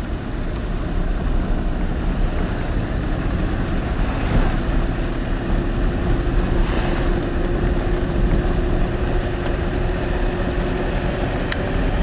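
Road and engine noise of a moving car heard from inside the cabin: a steady low rumble of tyres and engine. A faint steady drone holds through most of it.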